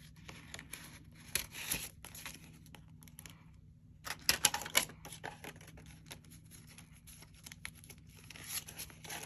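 A clear vinyl binder pouch crinkling and paper banknotes rustling as a stack of bills is slid out of the pouch and handled, in short irregular bursts of rustle and clicks, busiest about four to five seconds in.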